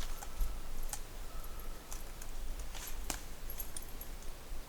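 Quiet woodland background with a handful of scattered sharp clicks and snaps, about a second apart, and faint high-pitched chirps.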